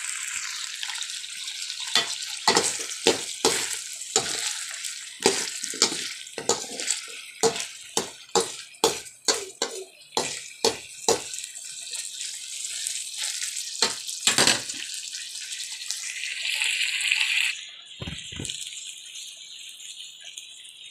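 Pork, carrots and potatoes sizzling in a metal wok as they are stirred together, the spatula knocking and scraping against the pan about two to three times a second. The knocking stops about halfway through, and near the end the sizzle briefly swells and then falls away.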